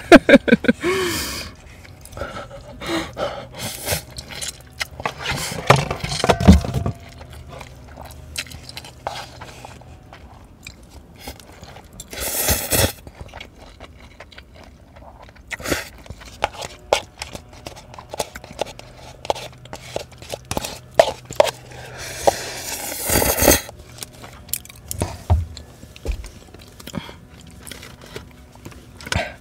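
A person eating cup instant ramen close to the microphone: several long noodle slurps among steady wet chewing and small mouth clicks.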